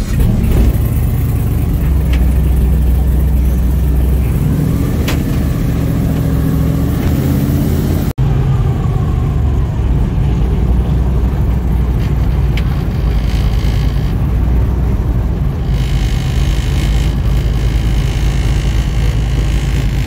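Airboat engine and propeller running loudly as the boat gets under way, rising in pitch over the first several seconds and then holding steady. It cuts out for an instant about eight seconds in.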